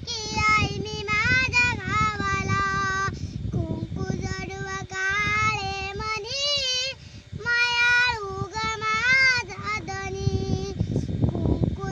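A young girl singing a melody in long held notes with pitch bends and ornaments, pausing briefly between phrases.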